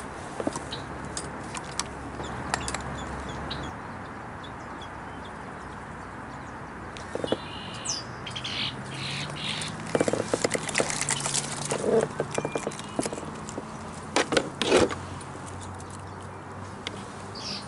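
Small birds chirping over a steady outdoor hiss, with a few sharp knocks and rustles about ten to fifteen seconds in as the kayak is worked through the reeds.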